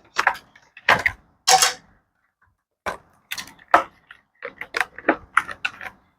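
Toy packaging and its contents being handled: irregular short rustles and clicks.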